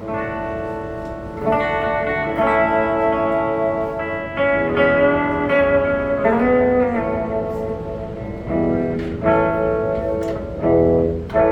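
Electric guitar played through an amplifier, an instrumental passage: chords struck every second or so and left to ring, with notes sliding in pitch about six seconds in.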